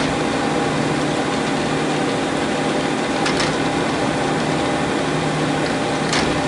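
Monarch 612 engine lathe running under power: a steady mechanical hum and whine, with two short clicks about three seconds in and again near the end.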